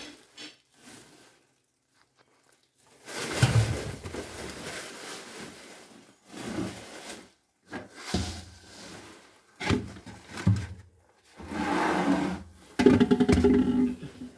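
Plastic containers, tubs and sacks being shifted and rustled across a floor, scraping in irregular bursts with short quiet gaps between.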